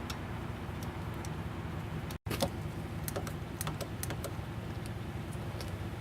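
Scattered light clicks and taps of small parts being handled, over a steady low hum. The sound drops out completely for a split second about two seconds in, and the clicks come thicker just after.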